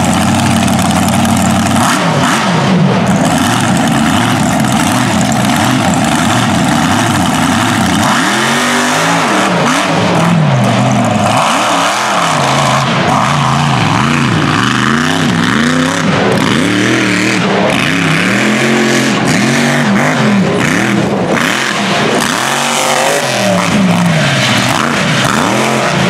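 Mega mud truck's engine running hard on a race run, its note steady at first, then swinging up and down in pitch over and over from about a third of the way in as the revs climb and drop.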